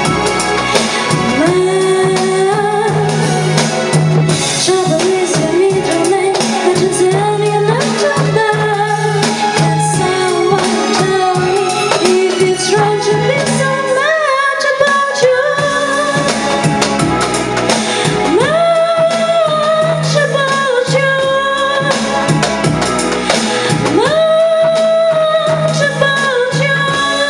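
A woman singing a slow pop song into a microphone over an instrumental backing, with hand percussion from a cajon keeping an even beat.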